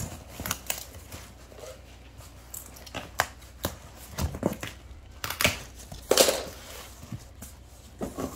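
Packaging being handled and pulled open by hand: irregular crinkling, rustling and tearing, with scattered sharp taps and knocks.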